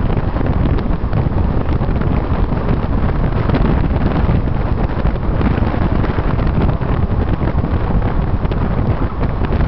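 Wind buffeting the microphone in a moving car, over the car's engine and road noise: a loud, steady rushing rumble.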